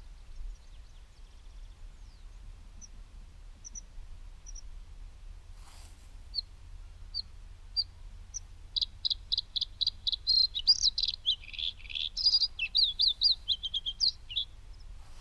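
A small songbird gives a few separate high chirps, then a rapid, busy song of high notes from about nine seconds in until near the end. A brief rustle comes about six seconds in.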